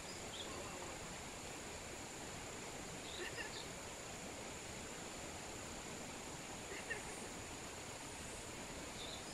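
Quiet forest ambience: a steady high-pitched insect drone over a background hiss, with a few brief chirps about three and seven seconds in.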